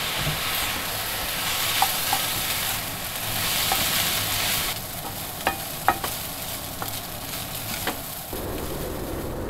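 Rice and bacon sizzling as they fry in a metal frying pan, stirred and tossed with a spatula. The spatula clicks against the pan now and then, and the sizzle is louder in the first half.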